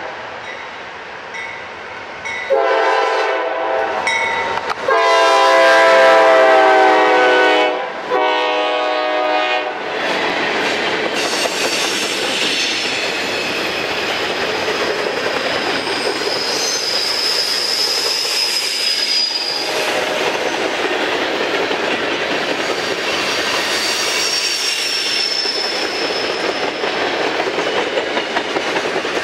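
Norfolk Southern diesel locomotives' air horn sounding a series of blasts, the loudest and longest about five seconds in. The horn stops about ten seconds in, and then the mixed freight train rolls past with clickety-clack over the rail joints and a few brief high wheel squeals.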